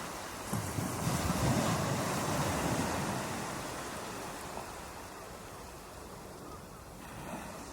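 Ocean waves breaking on a beach: a wave crashes about half a second in, its wash runs on for a couple of seconds and then ebbs away, with the next wave starting to build near the end.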